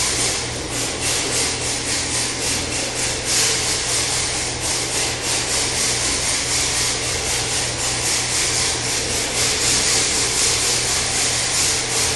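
Toy RC drift car's hard tyres scrubbing and sliding on a glazed tile floor as it drifts, with its small electric motor and gears whirring: a continuous rasping hiss that swells and dips.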